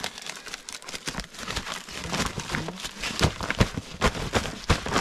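A run of irregular clicks and knocks with crinkling rustle, getting busier and louder in the second half.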